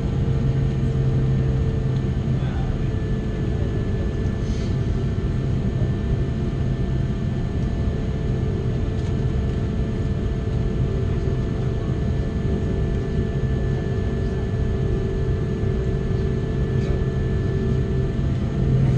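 Steady cabin noise inside an Airbus A330-200 on the ground after landing: idling jet engines and cabin air make a constant low hum with several steady whining tones above it.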